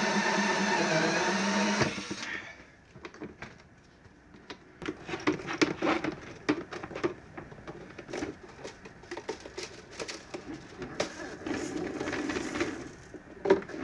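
Cordless drill with a step bit running as it bores through a clear plastic storage container, stopping about two seconds in. Then come scattered clicks and knocks of hard plastic being handled as filament is threaded through a feeder and a spool is set into the box.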